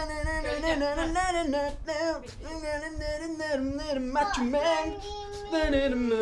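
A voice singing a wordless tune, the pitch wavering and sliding, with a brief break and an upward slide about four seconds in.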